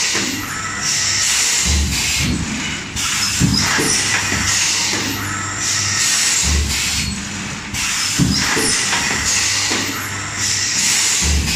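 Plastic thermoforming machine with inline cutting and stacking stations running through its cycle: spells of air hiss and low clunks from the press, repeating about every five seconds.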